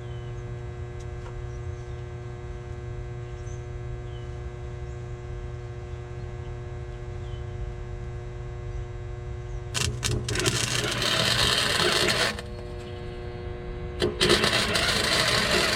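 Small 80-amp MIG welder humming steadily, then two bursts of welding-arc crackle, about two and a half seconds and two seconds long, with a short pause between.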